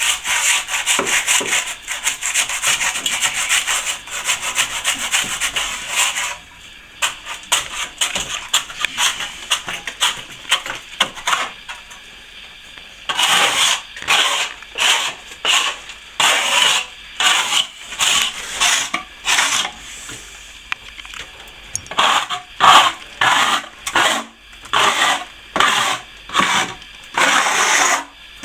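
A sharp-edged plastering tool scraping over plaster that has set too hard, cutting it off in quick, rasping strokes: the coat was worked past its setting time. The scraping is continuous at first, then from about halfway becomes a steady run of separate strokes, roughly three every two seconds.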